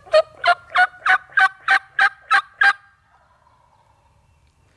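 Wild turkey yelping close by: a series of about ten loud, evenly spaced yelps, roughly three a second, that stops a little under three seconds in.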